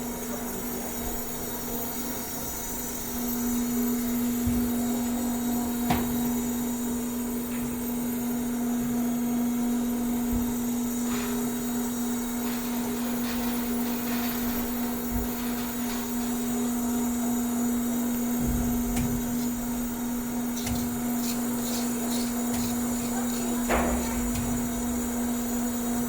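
Industrial machinery running with a steady, even hum that grows louder about three seconds in, with a few scattered knocks and clanks.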